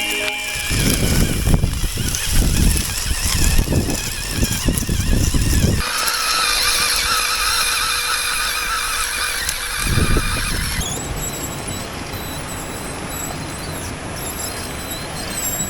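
Radio-controlled scale 4x4 car running, its electric motor and gears whining with a wavering pitch. The sound changes abruptly about six seconds in and again near eleven seconds, and the first part is dominated by an uneven low rumble.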